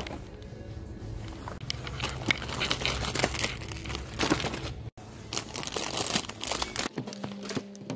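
Plastic snack packaging crinkling and rustling as packets of instant ramen and chocolate are handled and taken off supermarket shelves, over a low steady hum that drops out about seven seconds in.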